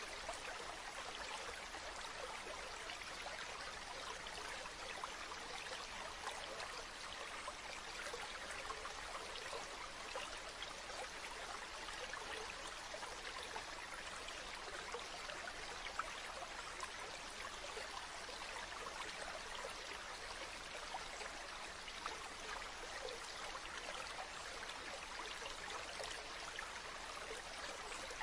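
Stream babbling steadily: an even rush of running water flecked with many small splashes and trickles, with no let-up.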